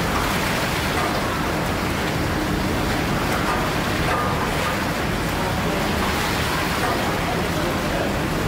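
1858 R. W. Hawthorn steam beam pumping engine running, heard as a steady mechanical rush with no clear beat.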